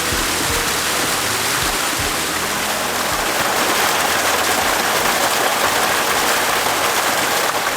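Mountain river water rushing over rocky cascades and small waterfalls, a steady full rushing noise.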